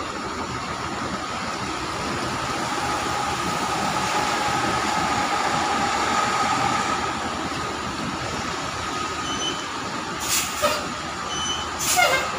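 Mercedes-Benz coach bus moving slowly in close, its engine running with a steady whine over the rumble of the engine and tyres. Two short bursts of hiss come near the end, the second one louder.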